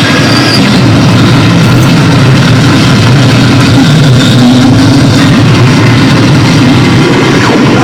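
Harsh noise played live on electronics: a loud, dense wall of distorted noise, heaviest in a low rumble, running steadily without a break.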